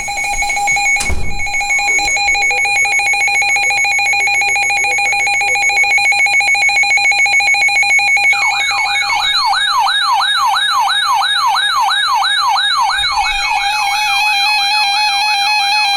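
Emergency alert tones for a special marine warning. A steady electronic tone sounds first. About halfway through, a warbling siren-like tone joins it, rising and falling about twice a second, and the warble speeds up later on.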